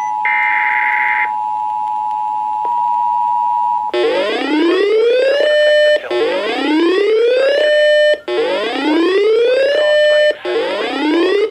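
Emergency Alert System tones: a short buzzy SAME header data burst over the steady two-tone EAS attention signal, which cuts off about four seconds in. Then a synthetic siren-like whoop, rising in pitch for about a second and a half and holding briefly, repeats about every two seconds, three times and the start of a fourth.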